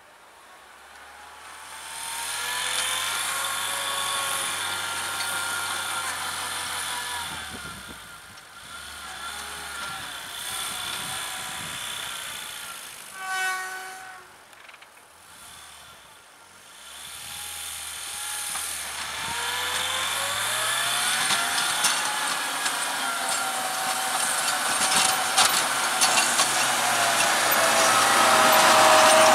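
Homemade tractor's VAZ-2101 four-cylinder petrol engine running under load while pushing snow with a front blade. Its pitch rises and falls as it revs up and eases off. It gets louder as the tractor comes closer, with a dip about halfway.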